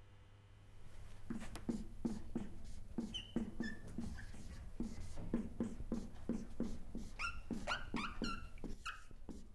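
Marker on a whiteboard as words are written: a quick run of short strokes starting about a second in, with high squeaks that slide downward, stronger over the last few seconds.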